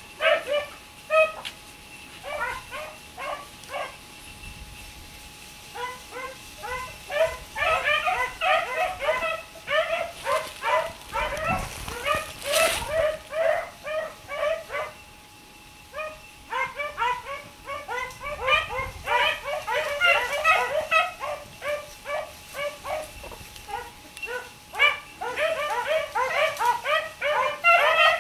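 A pack of hunting hounds giving tongue on a track: many short, overlapping yips and barks, thinning out for a moment a few seconds in and again just past the middle, then picking up again.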